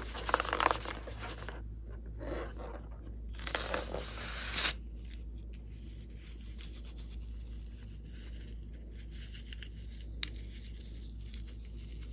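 Rubbery rubbing and crinkling as a toy balloon is handled, then a hissing rush about three and a half seconds in that cuts off abruptly about a second later. After that, faint rustling and one sharp click about ten seconds in as scissors are brought to the balloon.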